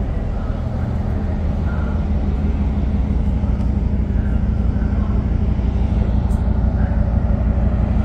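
Steady low hum of docked cruise-ship machinery, such as diesel generators and ventilation, with several held low tones under a rough rushing noise. It grows slightly louder towards the end.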